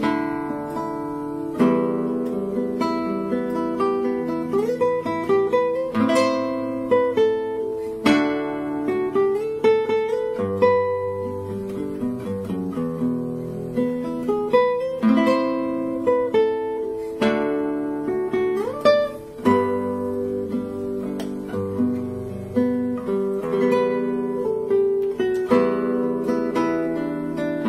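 Solo classical guitar with nylon strings played fingerstyle: a slow melody plucked over ringing bass notes and chords, with a few notes slid up the neck.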